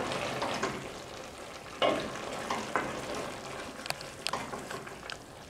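Wooden spoon stirring a stew of meat, chickpeas and dried fruit in a stainless steel pot, over a steady sizzle of hot olive oil. The spoon knocks against the pot a few times from about two seconds in.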